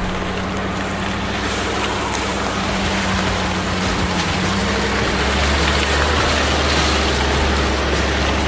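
Off-road vehicle driving, its engine running steadily under a constant rushing noise. The engine's low hum shifts to a deeper, stronger drone about four and a half seconds in.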